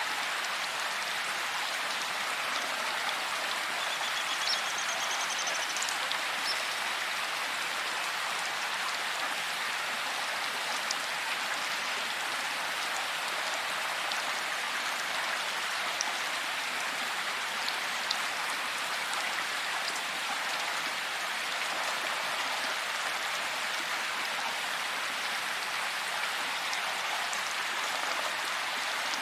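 Heavy rain falling steadily: an even hiss with an occasional single drop ticking out of it.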